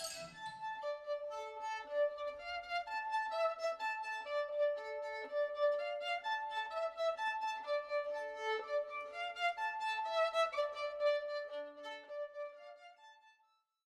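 Violin playing a quick melodic figure of short, separate notes, fading out near the end.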